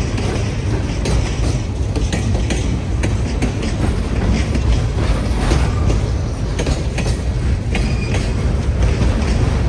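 Freight train of a lumber train rolling past with a steady low rumble and irregular clicking of wheels over the rail joints.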